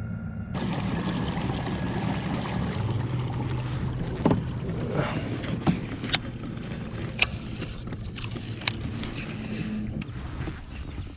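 Fishing kayak moving over calm water: a steady rush of water and hull noise, broken by a few sharp clicks and knocks between about 4 and 9 seconds in.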